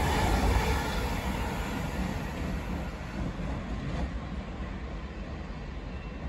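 LNER Azuma high-speed train receding down the line, its running noise fading steadily away.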